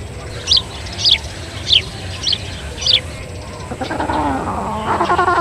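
A small songbird calls five short, sharp, falling chirps about 0.6 s apart. After about four seconds a louder, lower, wavering animal call starts and carries on.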